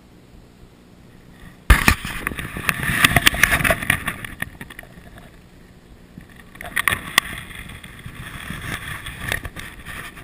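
Shallow river water splashing and sloshing close to the microphone, with knocks and rustles, as a hooked grilse is grabbed and landed by hand. It starts suddenly about two seconds in, eases off, and picks up again near the end.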